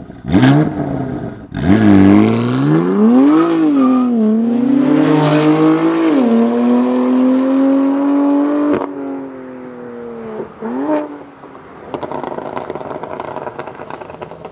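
BMW M4 F82's S55 twin-turbo straight-six through an Active Autowerke equal-length exhaust, revved hard. It opens with a couple of short, sharp blips, then a long pull whose pitch rises and dips before holding steady for a few seconds. The note drops away suddenly about nine seconds in, with one more short blip a couple of seconds later.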